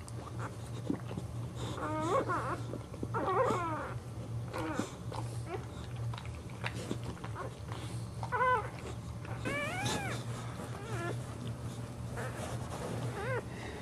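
Newborn Boxer puppies crying: a series of short, high-pitched squealing mews, about seven, each bending up and down in pitch.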